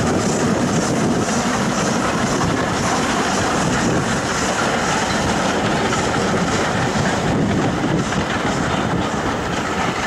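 Two steam locomotives, one of them SR Lord Nelson class 4-6-0 No. 850, passing under steam at the head of a passenger train, followed by the coaches rolling by on the rails. The sound is loud and steady throughout.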